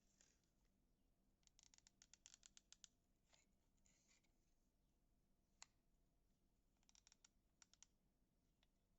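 Near silence broken by faint, light clicks and scratches, in two quick clusters with a single click between them.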